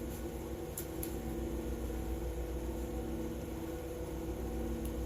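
Steady low mechanical hum of background machinery, with a couple of faint light clicks about a second in and near the end.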